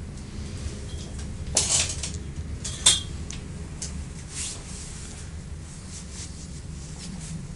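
Steel pincers working a galvanised tension wire against a metal fence post, twisting it tight: a short scrape under two seconds in, then a sharp metallic click with a brief ring about a second later, and a few lighter ticks.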